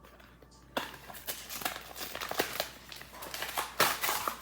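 Plastic blister packaging of a trading-card pack crinkling and crackling as it is pried open by hand: a run of small crackles starting about a second in, with a louder snap near the end.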